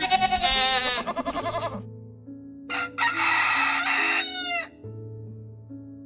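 Rooster crowing twice, the second crow dropping in pitch at its end, over soft background music of sustained notes.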